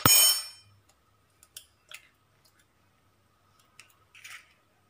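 A sharp metallic clack of a steel spoon with a brief ring at the start, as a hen's egg is cracked. It is followed by a few faint clicks and, about four seconds in, a short soft rustle as the shell is pulled open and the egg drops into a bowl of flour.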